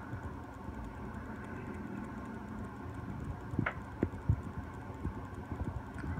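Soft bumps and knocks of a handheld phone being shifted, several in the second half, over a steady low background hum.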